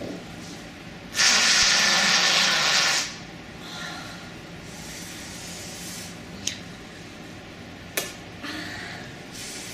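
A long, airy, hissing fart sound effect of about two seconds, starting about a second in, followed by fainter hisses and two sharp clicks.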